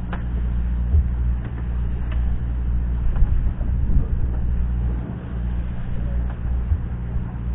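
Fishing boat's engine running with a steady low hum, with a few faint clicks over it.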